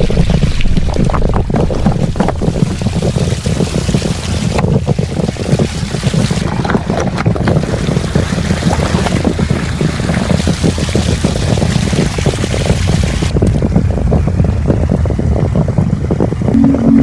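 Rushing stream water pouring over rocks, a loud, steady, rumbling churn, with wind buffeting the microphone.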